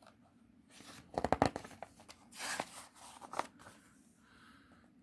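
Storybook's paper page being turned: a few short rustles and crinkles, the loudest about a second in, the last around three and a half seconds in.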